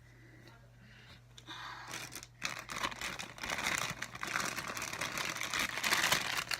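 Crinkling and rustling of plastic packaging as a squishy toy is pulled out and handled, starting about a second and a half in and growing louder and busier.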